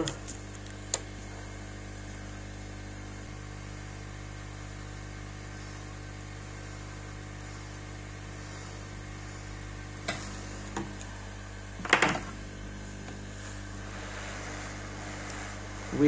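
Steady mechanical hum of a hot air rework station's blower running at temperature. A few light clicks are heard, with a louder short clatter about twelve seconds in.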